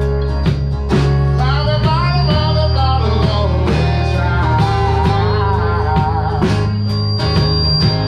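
Live band playing a blues-country rock number: electric guitars, bass and drum kit keeping a steady beat, with a lead line that bends and wavers in pitch from about a second and a half in until about six seconds.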